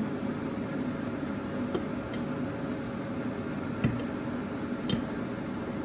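Knife and fork clicking lightly against a ceramic plate a few times while cutting into poached eggs, over a steady background hum.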